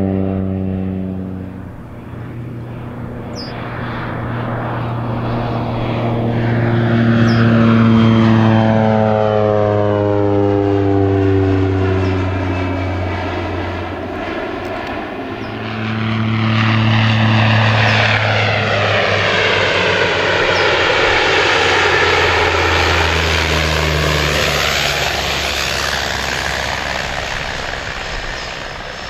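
Air Tractor AT-402 crop duster's turboprop engine and propeller in low flybys, the drone swelling as the plane comes close and dropping in pitch as it goes past, several times over.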